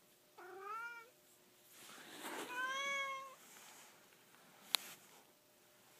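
Domestic cat meowing twice: a short call rising in pitch about half a second in, then a longer, steadier meow around three seconds in. A single sharp click comes near the end.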